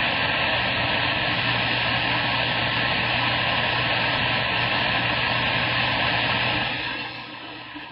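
CB radio speaker hissing loudly with static and a low steady hum: the receiver's band noise after the mic is unkeyed. It drops to a quieter hiss about seven seconds in.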